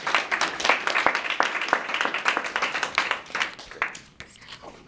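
Applause from a small audience, the separate claps distinct, thinning out and dying away about four seconds in.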